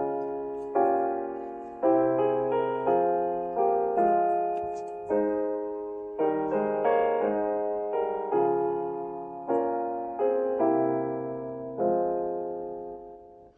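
Slow, gentle solo piano music: a chord struck about once a second, each one ringing and fading before the next, dying away near the end.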